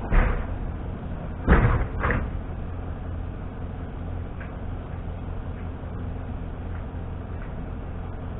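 Three heavy knocks: one at the start, then two close together about a second and a half in. They sound over a steady low hum.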